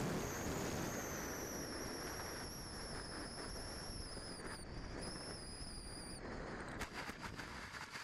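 Onboard audio of an electric RC model plane coming in to land: wind rushing over the microphone and a faint high motor whine that slides slowly down in pitch and stops about six seconds in, then a brief scratchy rattle as it touches down in the grass.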